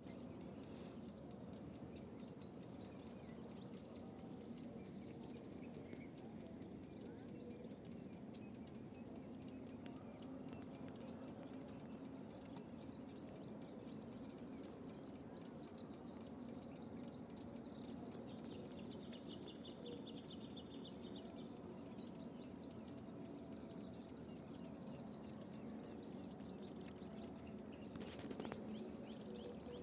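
Many small birds chirping and calling together, quick high chirps and short trills throughout, over a steady low background hiss. A brief louder noise sounds near the end.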